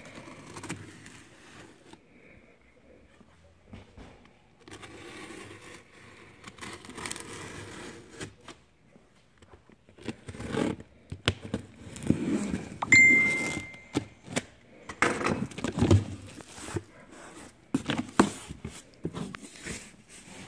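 Utility knife slicing packing tape on a cardboard box, then the cardboard flaps being pulled open and handled, with scrapes and knocks. A brief high ring partway through is the loudest sound.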